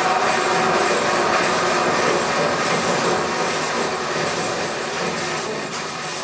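An old wainwright's bandsaw, about 110 years old, running under its electric motor: a steady mechanical whirr and rumble from the big wheels and blade turning on oil-filled plain bearings. The upper wheel has 1 mm of play on its axle. The sound fades gradually over the last two seconds.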